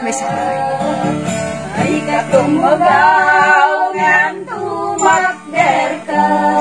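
Several voices singing an Ilocano Christmas carol together, accompanied by a strummed acoustic guitar.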